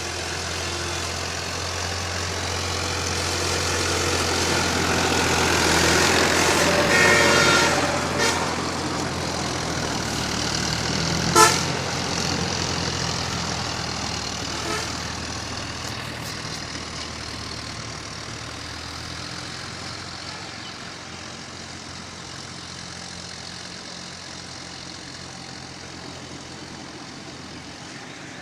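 Tractor engine running, growing louder for several seconds and then slowly fading as it moves away, with a short horn toot about eleven seconds in.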